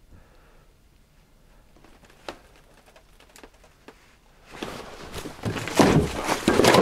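A few faint clicks from a hydraulic floor jack as its handle is worked. About four and a half seconds in, a loud, jumbled clatter and rustling rises as the camera is knocked about.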